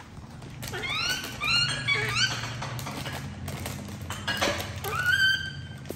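Baby monkey giving high, squeaky calls, each sweeping upward in pitch: a quick run of them about a second in and a few more near the end. Light clicks and crinkles come from the plastic bread bag it is handling.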